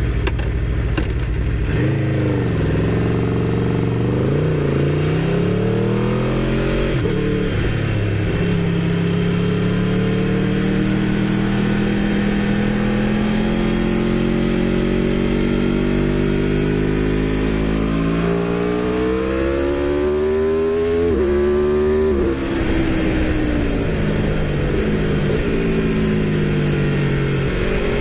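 Aprilia RSV4 1100 Factory's V4 engine with an Akrapovic exhaust, heard under way from on the bike: its pitch rises as it revs up and falls back repeatedly, holds steady through a long middle stretch, then climbs fast and drops suddenly about two-thirds through.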